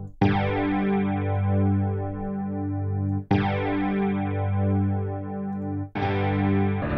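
Steinberg HALion 7 Spectral Synth playing a resynthesized guitar-riff sample in multi mode, with several detuned voices stacked like a supersaw. Three sustained chords sound one after another, each about three seconds long, and the detuned voices give each one a wide, slowly pulsing beat.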